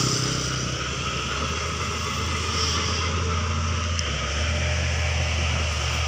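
An engine running steadily at constant speed, a low drone that shifts slightly about four seconds in.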